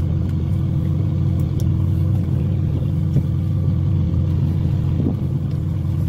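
Steady low drone of a fishing boat's engine running at a constant pitch, with a few light clicks from the fishing tackle being handled.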